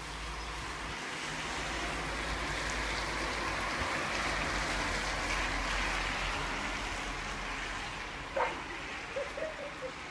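Thunderstorm noise: a rushing roar of rain and storm that swells over several seconds and then eases off.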